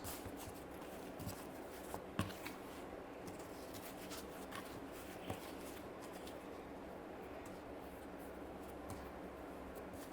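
Hands handling things on a work surface: scattered soft rustles and small taps over a steady background hum, with a sharper tap about two seconds in and another about five seconds in.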